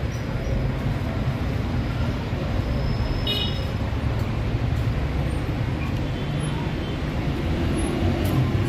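City street traffic: cars and motorbikes driving past with engines running, a steady low rumble of road noise.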